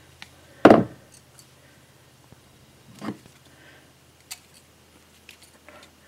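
Steel pliers clicking and shifting as two copper wires are twisted together into a splice. A single louder knock comes about a second in, with a softer one near the middle and a few light clicks later, over a low hum.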